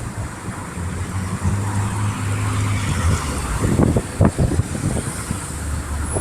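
Motor vehicle engine hum and road noise, with a cluster of low thumps about four seconds in.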